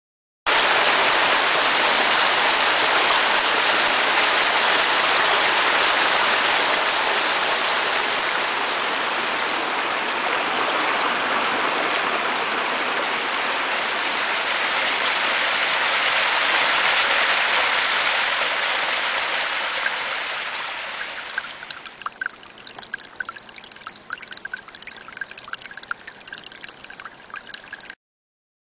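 Stream water rushing steadily. After about 20 s it fades to a quieter flow with short, high ticks, and it cuts off suddenly near the end.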